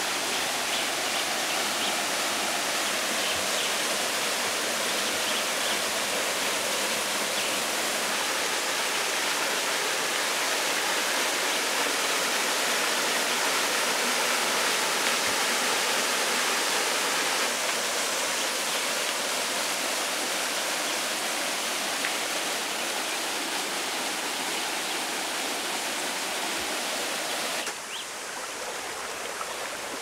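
Small waterfall splashing steadily into a rock pool, an even rush of falling water. About 28 s in it gives way to a quieter shallow stream trickling over rocks.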